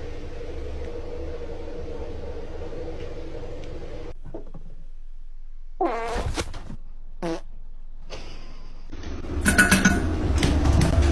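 Two short farts, the first about six seconds in with a wavering pitch, the second a brief one a second later with a falling pitch. They come after a steady background hum, and a louder rumbling noise takes over near the end.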